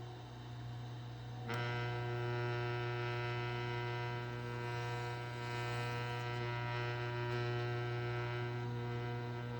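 Electric motor of a Crown transport starting about a second and a half in over a steady low hum, then running with a steady whine of several tones and a rough, gritty edge. This is the sound of bad motor bearings.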